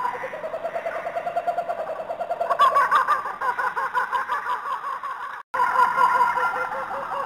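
Recorded wild-animal calls playing for the animatronic display: rapidly pulsing, bird-like cries in several pitches. The sound cuts out for an instant about five and a half seconds in, then resumes.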